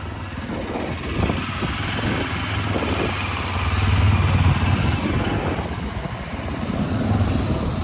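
Yezdi motorcycle's single-cylinder engine and exhaust running at low revs as the bike rolls slowly past, growing louder about halfway through and then easing off.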